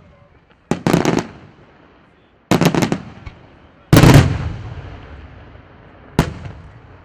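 Aerial fireworks shells bursting in quick clusters of bangs. The loudest burst comes about four seconds in and trails off in a long rumbling echo, and a single bang follows near the end.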